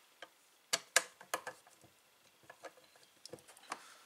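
Screwdriver turning screws in the metal case of a power inverter, taking it apart: a cluster of sharp metallic clicks about a second in, then scattered lighter clicks.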